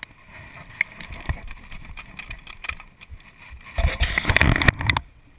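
Soft rustling and clicks of riding gear being handled on a gravel road, then near the end about a second of loud rumbling, scraping handling noise as the camera is moved.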